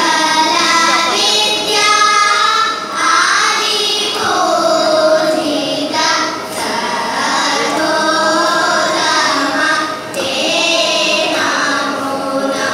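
A group of children singing in unison through stage microphones, in sung phrases with short breaks between them, over a steady drone note from an electronic shruti box.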